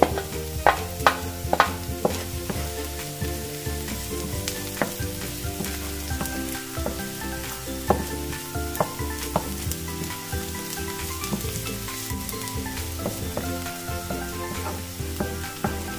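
Chopped ginger, onion and garlic sizzling in oil in a non-stick frying pan, stirred with a wooden spatula that knocks and scrapes against the pan. The knocks come thickest in the first couple of seconds as the garlic is scraped in, then the stirring goes on with scattered taps: aromatics being sautéed.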